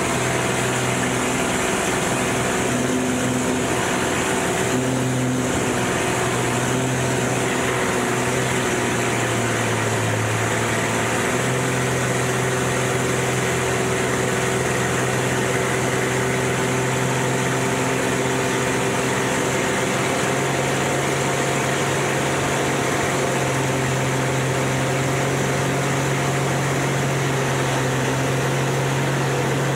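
Single-engine aerobatic plane's piston engine and propeller running, heard from inside the cockpit. A steady drone with air rushing over it. The engine note dips briefly about ten seconds in, then picks back up and holds.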